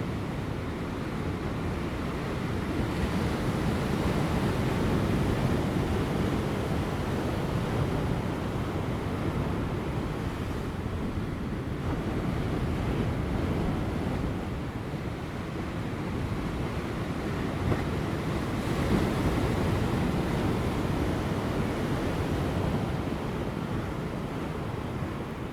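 Large ocean waves breaking on offshore rocks: a continuous rush of surf that swells and eases, louder around the first few seconds and again past the middle, with light wind.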